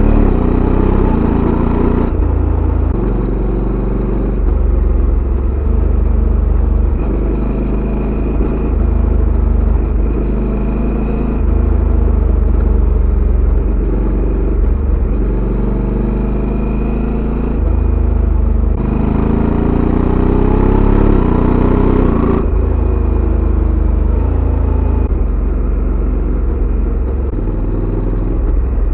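Honda Africa Twin CRF1100 DCT's 1084 cc parallel-twin engine running through its original Honda exhaust, its revs shifting up and down repeatedly, with a clear rise in revs about two-thirds of the way through.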